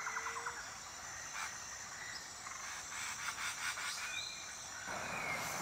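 Faint jungle ambience with rhythmic frog-like croaking and a short falling chirp, then the rustle of a picture-book page being turned near the end.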